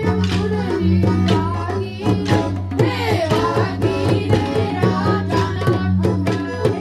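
A group of singers, women and a boy, singing an Indian song into microphones, with a keyboard holding steady low notes and a hand drum playing a steady beat.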